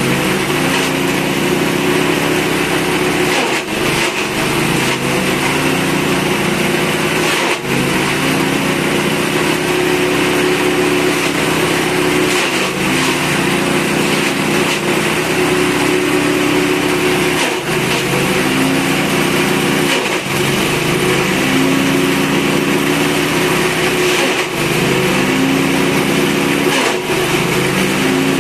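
Grass chopper driven by a small stationary engine, running steadily as grass stalks are fed into it. Every few seconds, about seven times, the engine dips in pitch with a knock as a handful of stalks is cut, then picks back up to speed.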